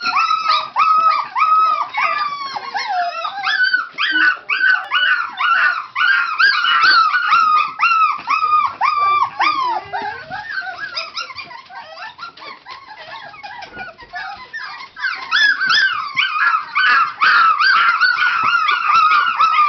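A litter of five-week-old puppies yipping and howling in short, rising-and-falling high calls, about two a second and overlapping, quieter for a few seconds in the middle. The puppies are demanding to be let out of their playpen.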